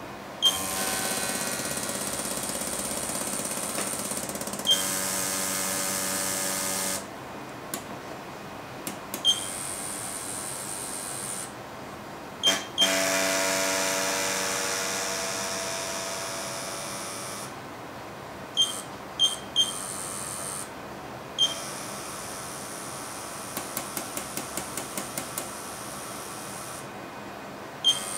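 Pneumatic robot arm moving under a 12.5 kg load: valves click open and shut, and compressed air hisses through them in stretches of a few seconds, some with a whistling tone. Near the end comes a quick run of valve clicks, about three a second.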